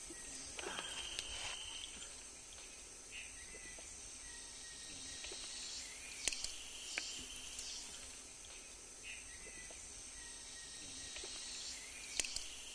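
Tropical rainforest ambience: a steady high insect chorus, with a few short animal calls and scattered clicks.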